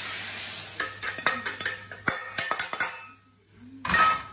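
Metal spatula scraping and tapping beef out of an iron wok into a ceramic rice bowl: a quick run of clinks and scrapes, after a short spell of the pan still sizzling. Near the end, a brief loud hiss as the hot wok goes back on the gas burner and steams.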